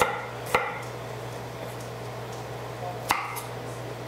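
Chef's knife slicing fresh ginger on a wooden cutting board: two sharp knocks of the blade on the board in the first half second, a pause, then one more knife stroke about three seconds in.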